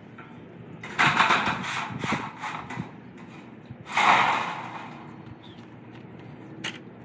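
A roofing panel rattling and clattering as it is handled and pushed up onto the corral's roof frame. There is a run of clatter about a second in, then a second loud rattle around four seconds in.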